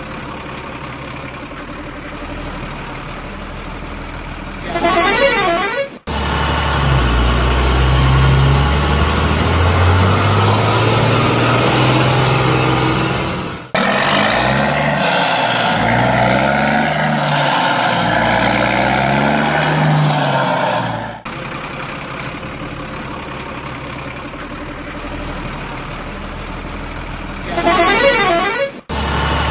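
Dubbed-in truck sound effects: a heavy engine running and revving, rising and falling in pitch, with horn sounds, broken up by two short whooshing transition effects.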